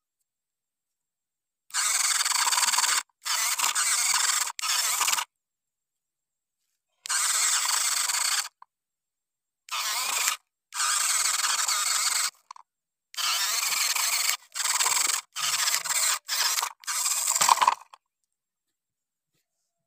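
Small electric geared motor of a toy tractor running in short bursts, a harsh grinding buzz, about a dozen times, each one starting and cutting off abruptly, while it strains to pull two soil-loaded trolleys.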